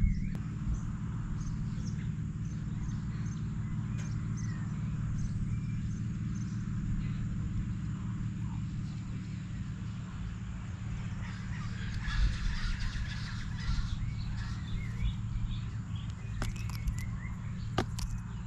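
Birds calling over a steady low rumble, with a busier run of calls about twelve seconds in. Near the end come a few sharp taps as an Australian magpie reaches the plastic feeding tray.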